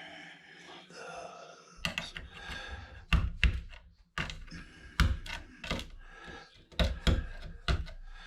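Hand tool prying and scraping chips off a computer motherboard: a rasping scrape for about the first two seconds, then about a dozen sharp, irregular clicks and knocks as the chips come loose.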